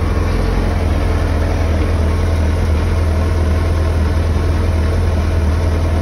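2009 Suzuki Hayabusa's 1340 cc inline-four engine idling steadily, running on petrol that has been sitting in the tank for 5.5 years.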